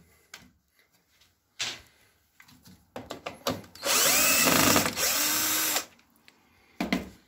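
Cordless drill-driver running in reverse in one burst of about two seconds, about halfway through, backing a cross-head screw out of a PVC window frame. Small clicks come before it as the bit is set on the screw, and a short knock follows near the end.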